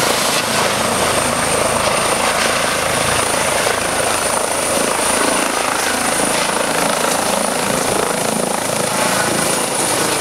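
Eurocopter EC135 rescue helicopter taking off: its turbines and rotor running loud and steady, with a high turbine whine, as it lifts from the grass and climbs away overhead.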